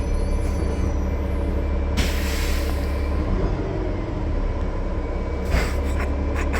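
Gillig Low Floor bus's Cummins ISL9 diesel engine running with a steady low rumble. About two seconds in there is a loud burst of air hiss from the air brake system, and a shorter hiss comes near the end.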